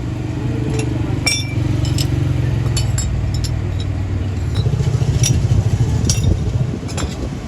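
A motor running steadily with a low, pulsing rumble that grows louder about halfway through, with scattered light metallic clinks.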